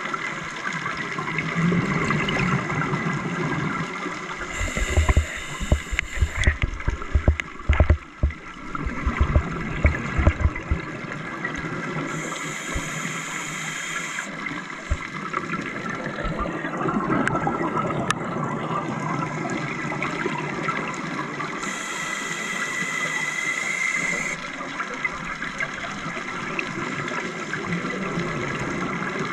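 Scuba regulator breathing heard underwater: a hissing inhalation through the regulator three times, and exhaled bubbles rumbling and gurgling, strongest after the first breath.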